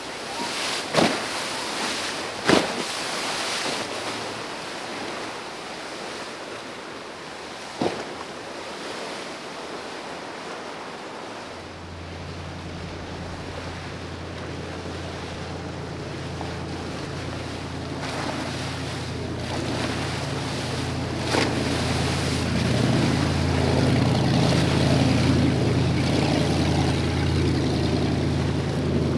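Choppy canal water churning and rushing, with three sharp knocks in the first eight seconds. About twelve seconds in, the engine of a Baja Outlaw 24 performance boat comes in as a steady low drone and grows louder as the boat runs through the rough water.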